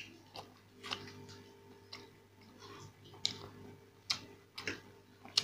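Close-miked eating sounds: crisp masala dosa being torn by hand and chewed, giving irregular sharp clicks and mouth smacks over a faint steady hum.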